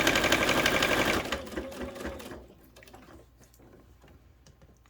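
Baby Lock sewing machine running fast, stitching a seam, and stopping about a second in. A few faint clicks follow.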